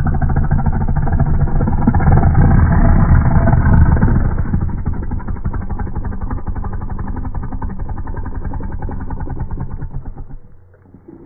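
Snow leopard growling and snarling in one long, deep, rattling growl. It is loudest over the first four seconds, then eases off and stops about ten seconds in.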